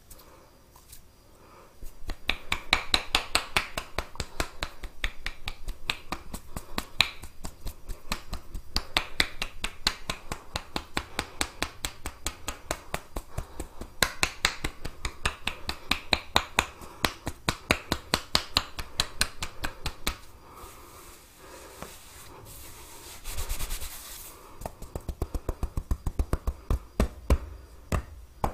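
Fingers rubbing quickly on a scalp and through hair in a head massage: a fast run of crisp scratching taps. It eases off partway through and returns near the end as slower, evenly spaced taps.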